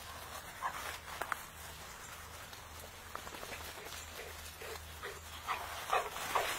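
Labrador puppies giving short yips and whines, several in quick succession near the end.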